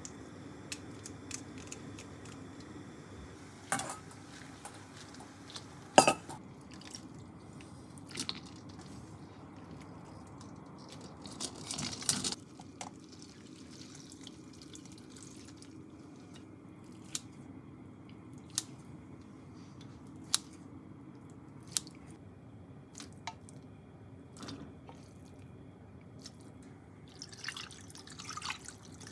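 Home cooking sounds over a low steady hum: utensils clinking and tapping against pots and bowls, with one sharp clatter about six seconds in. Water splashes and is poured from a steel bowl into a cast-iron pot near the end.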